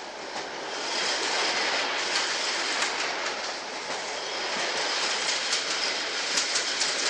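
Old gauge 1 tin-plate toy train running on metal track: a steady rattle of wheels on the rails that grows louder about a second in, with sharp clicks over the rail joints near the end.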